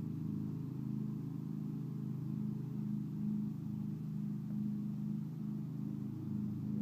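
Riding lawn mower engine running steadily under way, a low hum with a slight regular pulsing about twice a second.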